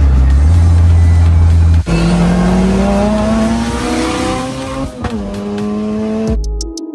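Car engine heard from inside the cabin, accelerating hard with its pitch climbing through the gears: a shift about two seconds in and another about five seconds in. Music with a drum beat cuts in near the end.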